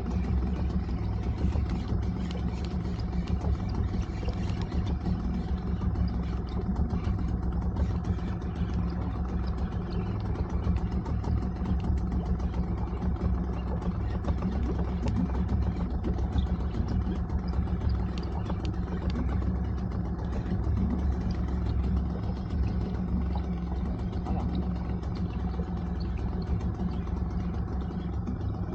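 An engine running steadily at an even speed, a continuous low hum that holds unchanged throughout.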